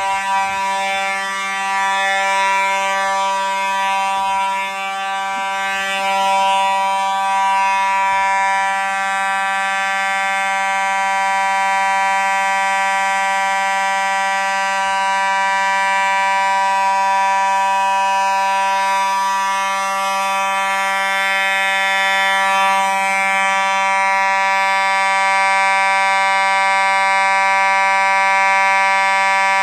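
Fire alarm horns sounding one loud, steady tone with no breaks.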